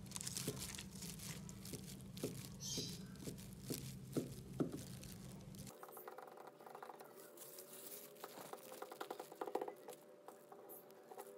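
Kitchen knife cutting a sheet of soft potato dough into long strips on a floured surface: light taps and scrapes of the blade, with a plastic glove rustling.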